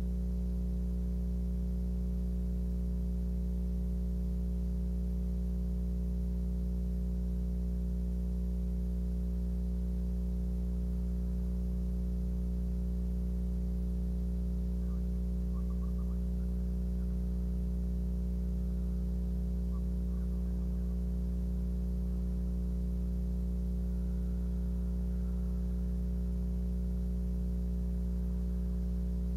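Steady low electrical hum made of several constant tones, unchanging in pitch and level, with a few faint brief high sounds about halfway through.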